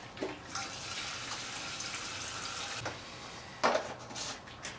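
Gasoline pouring from a plastic gas can's flexible spout into a Suzuki DRZ-125L's freshly drained fuel tank, a steady liquid hiss that stops about three seconds in. A few sharp knocks follow near the end.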